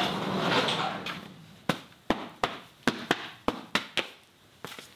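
A barn door opening with a broad scraping rush that dies away about a second in, then boots stepping on a gritty concrete floor, about three sharp steps a second.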